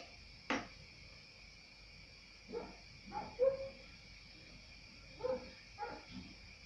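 A sharp clink of a metal spoon on a glass jar about half a second in. Then come two brief bouts of faint, short, pitched animal calls, one in the middle and one near the end.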